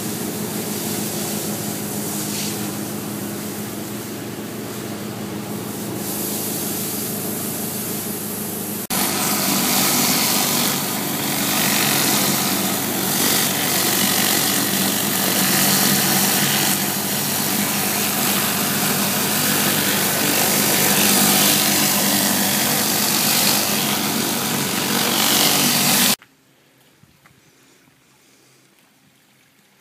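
Gas pressure washer engine running steadily under the hiss of water spray from a surface cleaner on brick pavers. About nine seconds in it jumps suddenly louder. A few seconds before the end it cuts off sharply, leaving only a faint background.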